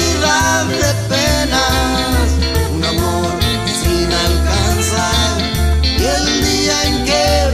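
A country band playing a song with a steady beat: upright bass, acoustic guitar, lap steel guitar and drums.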